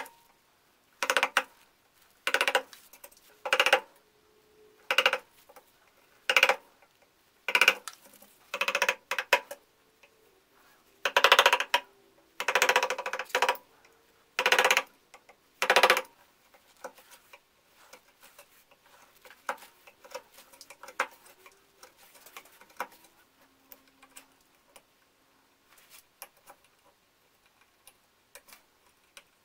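Antique carving gouge cutting by hand into a wooden block: a crisp crunching cut about every second for the first half. After that come fainter, scattered light scratches and ticks as a small pointed tool cleans out the carved scales.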